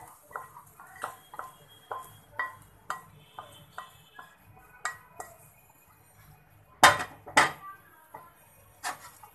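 Wooden spatula scraping and knocking against a non-stick frying pan and a ceramic bowl while cooked bitter gourd is scooped out: light knocks about two a second, then two much louder knocks about seven seconds in and one more near the end.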